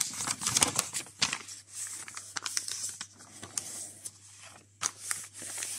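Paper rustling and crinkling as the pages of a printed instruction booklet are handled and turned. It comes as irregular crackles, busiest in the first second and a half and again near the end.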